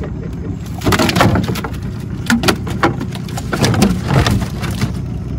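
A handful of sharp knocks and cracks, spread irregularly, over a steady low rumble.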